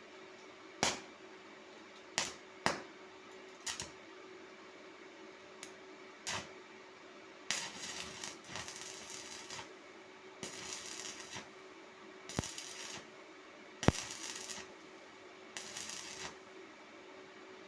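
Sharp metallic clicks and knocks, scattered through the clip. In the second half come five short bursts of crackling hiss, each about a second long, over a faint steady hum.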